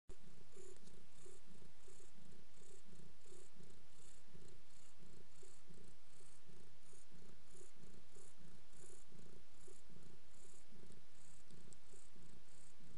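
A nursing mother cat purring steadily and close, in a fast, even pulsing rhythm.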